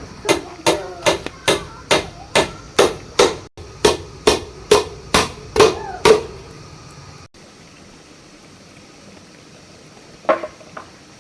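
Hammer blows at a steady pace of about two a second, each with a short ring, for about six seconds; then a pause and two more blows near the end.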